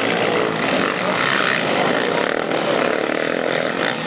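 Several racing quad bikes (ATVs) passing close by, their engines revving and overlapping in a loud, dense buzz that rises and falls in pitch.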